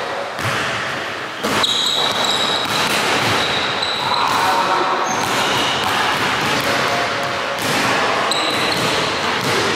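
Basketball dribbled on a hardwood gym floor, the bounces ringing in the hall, with short high squeaks at several points.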